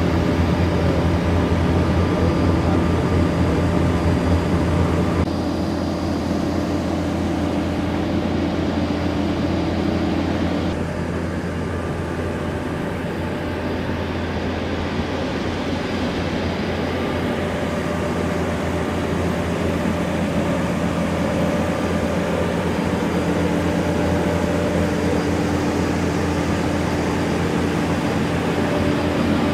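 Steady mechanical hum of airport ground equipment: a low drone under several fixed tones. The hum shifts abruptly twice, about five and eleven seconds in.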